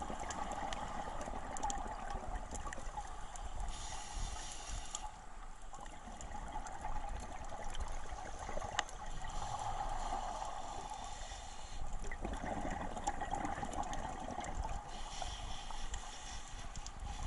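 Scuba regulator breathing heard underwater: exhaled bubbles gurgling in bursts a few seconds apart, with the hiss of the regulator on each inhalation in between.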